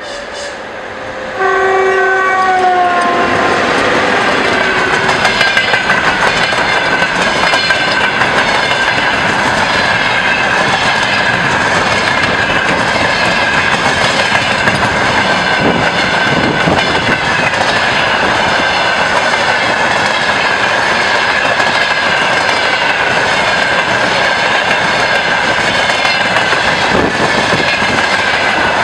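VL80s electric locomotive sounding its horn in one blast of about a second and a half as it passes close by, the pitch dropping near the end. Then a long freight train rolls past at speed: a steady, loud run of wheels rumbling and clattering on the rails.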